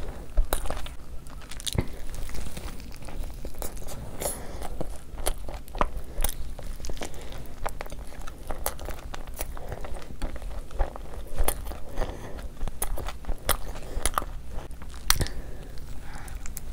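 Close-miked eating of a crispy crumb-coated fried chicken burger: crunchy bites and chewing, with many sharp, irregular crackles and crunches.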